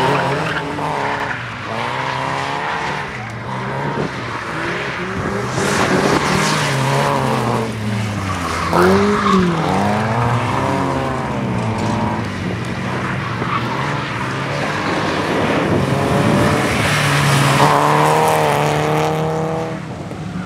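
Small car's engine driven hard, revving up and dropping back again and again as it brakes, turns and accelerates through tight corners, with some tyre squeal.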